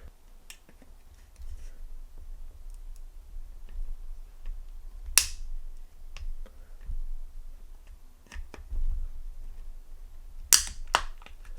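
A Zippo butane lighter insert being pried apart: small metal ticks and scrapes, with a sharp snap about five seconds in and a quick pair of sharp snaps near the end as the parts start to separate.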